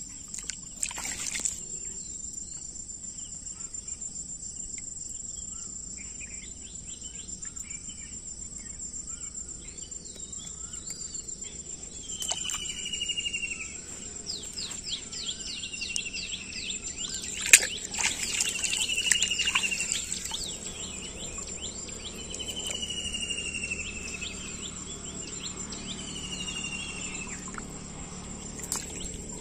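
Steady high-pitched insect chirring, like crickets, with a bird repeating a short falling whistle every few seconds and a brief burst of quick chirps. A few sharp clicks are heard; the loudest comes a little past the middle.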